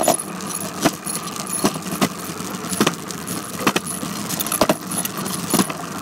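Bicycle being ridden: a steady rolling hiss with a rattle and a sharp click or knock about once a second.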